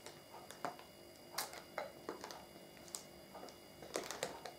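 A baby drinking from a bottle: faint, irregular small clicks and soft sucking noises, a few of them a second or so apart.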